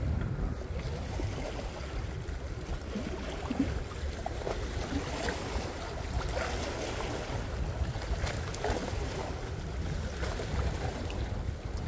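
Wind rumbling on the microphone over small sea waves washing against shore rocks, with a few faint scattered ticks.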